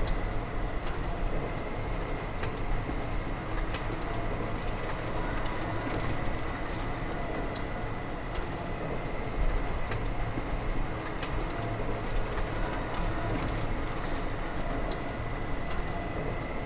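Steady factory machinery noise: a low hum and a constant thin whine, with scattered sharp clicks and knocks.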